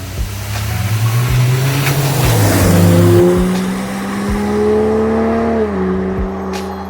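Ineos Grenadier engine heard through a Milltek Sport stainless steel performance exhaust, pulling hard. The note climbs, jumps up in pitch a few seconds in and holds loud, then eases off near the end.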